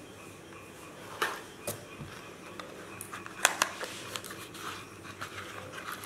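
Scissors cutting into cardboard packaging, with a few sharp snips, then cardboard and paper rustling as packing pieces are handled.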